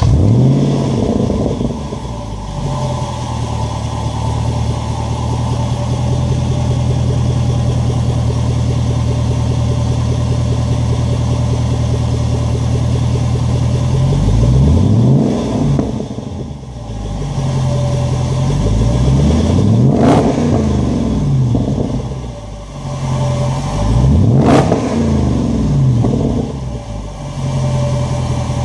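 Jaguar XFR's supercharged 5.0-litre V8 through a Mina Gallery aftermarket exhaust, just started, dropping from its start-up flare to a steady idle. In the second half it is revved three times, a few seconds apart, each rev climbing and falling straight back to idle.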